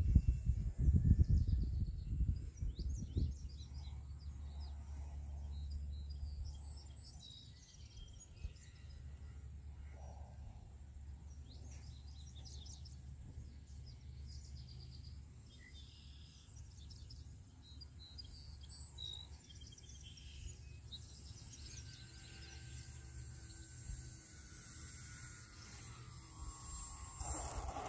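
Wind rumbling on the microphone, loudest in the first few seconds, with birds chirping and calling in the background. Over the last several seconds a faint high whine slides slowly down in pitch.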